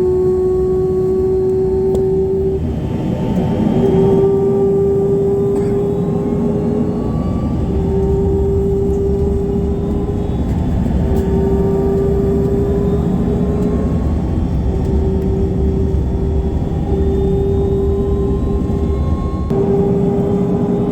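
Dornier 328JET's turbofan engines running with their typical moan: one strong steady tone that creeps slightly up in pitch and breaks off briefly several times, over a dense low rumble.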